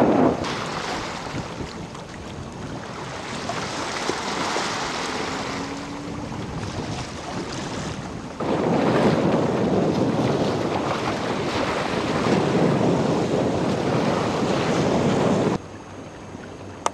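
Wind buffeting the microphone over the rush of water from a boat under way. The noise jumps louder suddenly about eight seconds in and drops off abruptly near the end.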